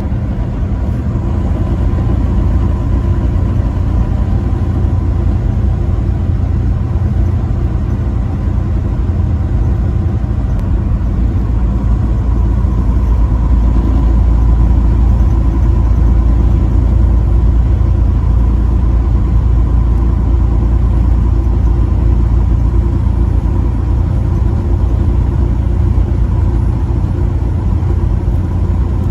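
Motor vehicle driving at a steady speed: a continuous low engine and road rumble with a faint steady whine over it. It swells slightly about halfway through.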